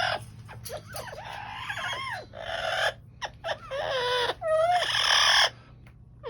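Amazon parrot calling: a string of harsh squawks mixed with whistled calls that glide up and down in pitch, about six calls with short pauses, then a brief lull near the end.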